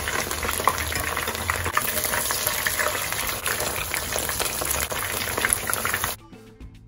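Battered chicken drumsticks deep-frying in hot oil in a wok: a dense, steady crackling sizzle while they are turned over with a fork. The sizzle cuts off suddenly about six seconds in, and quiet background music follows.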